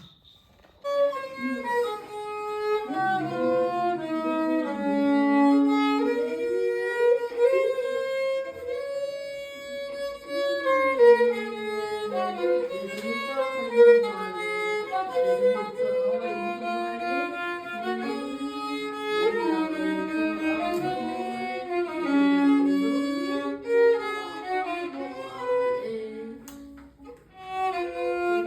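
Instrumental music carrying a continuous melody of held and gliding notes. It starts about a second in and breaks off briefly near the end.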